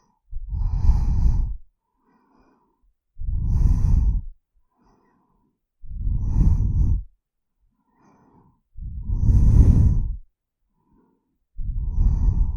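A person breathing slowly and audibly, five breaths in all, each about a second long and coming roughly every two and a half to three seconds.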